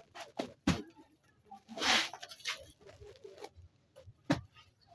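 Plastic wrapping crinkling and rustling as wrapped fabric bundles are handled, with several short sharp crackles and one longer rustle about two seconds in.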